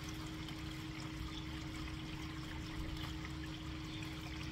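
Koi pond water trickling and running steadily, with a constant low hum underneath.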